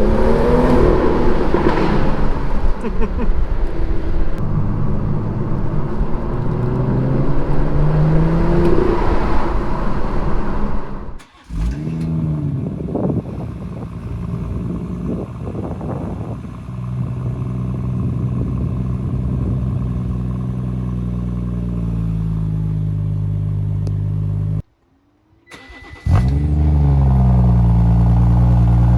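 Turbocharged BMW straight-six engine and exhaust accelerating hard, its pitch climbing and dropping in steps through the gear changes. After an abrupt cut it holds a steady drone. After a second cut near the end, the revs flare and settle into a steady, fast idle.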